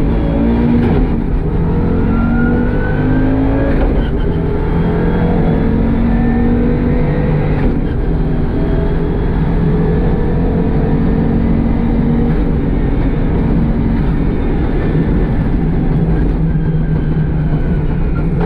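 Audi Quattro Group B rally car's turbocharged five-cylinder engine running and being revved, its pitch rising and falling again and again. The car has a misfire.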